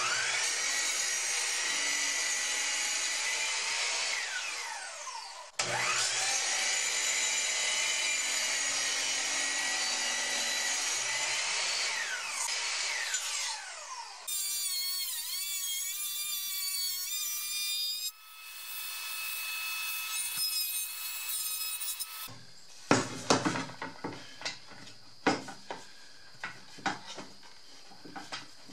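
Electric miter saw crosscutting old cedar boards. Twice its motor runs with a steady high whine through the cut, then winds down in falling pitch. More saw whine follows, first wavering, then steady. Near the end come a string of sharp wooden knocks and scraping as the boards are handled on the saw table.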